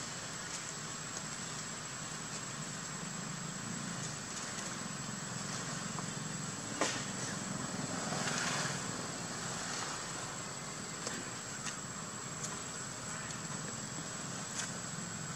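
Steady outdoor background noise: an even hiss with a low hum and a thin, constant high-pitched tone. A sharp click sounds a little before halfway through, a short swell of hiss follows about a second later, and a few fainter clicks are scattered through the rest.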